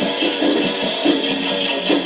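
Live band music led by strummed guitars over a steady beat.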